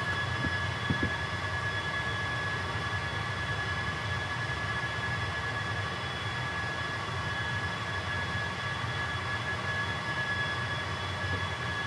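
Steady machine hum with a constant high-pitched whine, the drone of powered-up electrical equipment. A small click about a second in.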